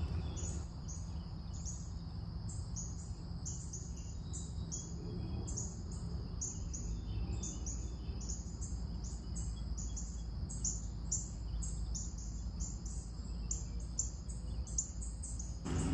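An insect chirping steadily in a high, even rhythm, about three chirps a second, over a low steady rumble.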